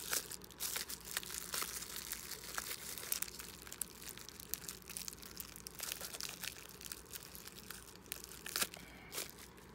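Wrapping material being crumpled and torn away by hand as a mug is unwrapped: continuous irregular crinkling and crackling with sharper tearing snaps.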